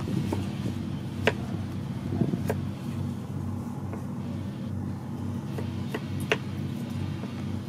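A knife chopping garlic cloves on a round wooden cutting board: sharp knocks at irregular intervals. A steady low hum runs underneath.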